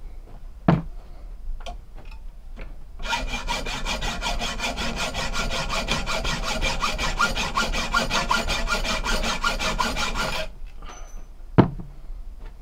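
Hacksaw cutting through a steel bolt in fast, even strokes for about seven seconds, with a steady metallic ring over the rasping; it starts and stops abruptly. A sharp knock comes near the start and a louder one near the end.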